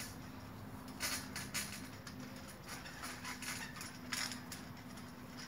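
A trampoline being jumped on: its springs and mat creak and rattle in irregular bursts over a faint steady hum.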